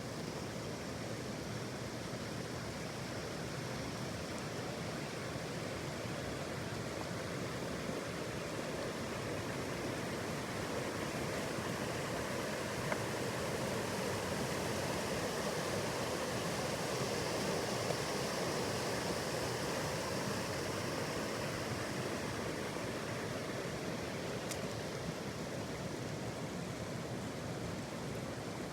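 Steady rushing of flowing water, an even, unbroken wash of noise.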